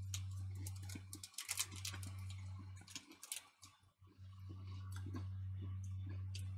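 Close-up chewing of a chocolate-covered hard biscuit (a Cadbury Sandwich Biscuit): a run of short, sharp, crackly crunches. A steady low electrical hum runs underneath and drops out briefly twice.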